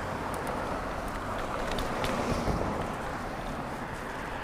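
Steady wind and road noise from a bicycle being ridden, with a few light clicks.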